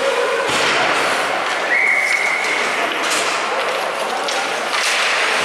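Ice hockey rink sounds during play: skates scraping on the ice and sticks knocking around a faceoff, with a few sharp clacks and a short steady high tone, like a whistle, about two seconds in.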